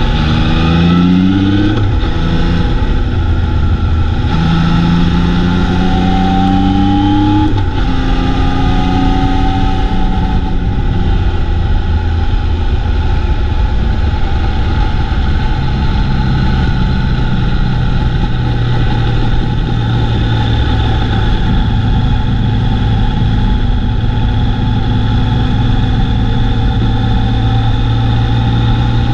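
Motorcycle engine accelerating up through the gears, its pitch rising and then dropping at a gear change about two seconds in and again near eight seconds, then running steadily at cruising speed.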